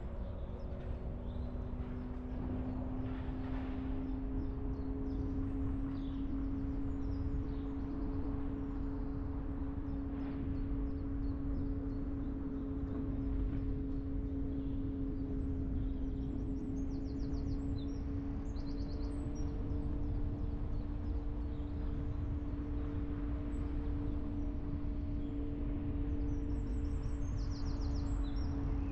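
Car driving along at a steady pace: a low rumble of road and tyre noise under a steady engine hum whose pitch creeps slowly upward. Faint birdsong trills come through now and then, more of them in the second half.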